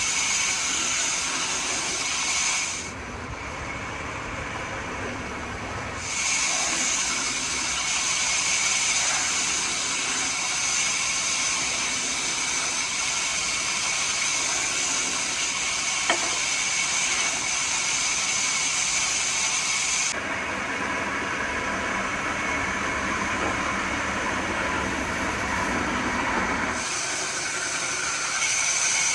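Woodworking machinery running with a steady, noisy hiss and a high whine; the machine sound changes abruptly several times, once about three seconds in and again about twenty seconds in.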